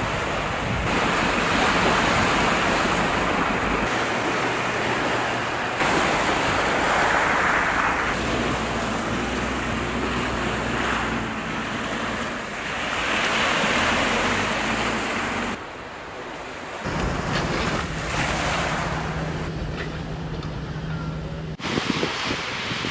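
Sea surf washing onto a beach in surges every few seconds, with wind buffeting the microphone. The sound cuts off and changes abruptly several times.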